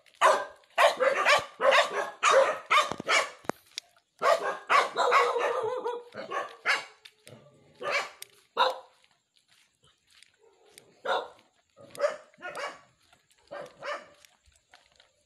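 Dog barking repeatedly: quick volleys of barks, about three a second for the first few seconds, a longer drawn-out bark in the middle, then fewer and fainter barks spaced out toward the end.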